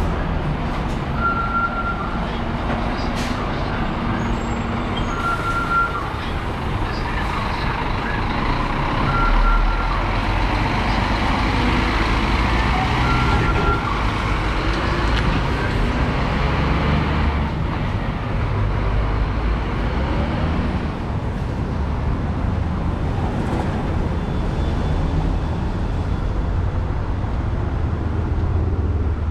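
Street traffic noise from passing vehicles, with a heavy low rumble that swells twice. A short, high beep sounds four times, about four seconds apart, in the first half.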